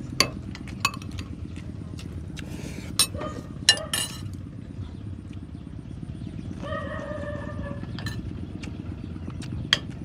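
Metal spoons clicking against plates and bowls during a meal, several sharp taps, over a low steady rumble. A short hummed voice sound comes about two-thirds of the way through.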